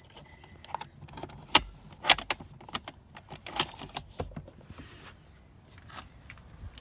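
Plastic fold-out cup holder on a Subaru Forester's rear centre console being handled and pushed shut: a string of sharp plastic clicks and clacks, the loudest about one and a half, two and three and a half seconds in.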